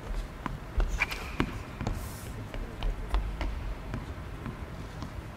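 Tennis ball bouncing on an indoor hard court as the server readies to serve: a string of sharp taps at uneven intervals, echoing a little in the hall.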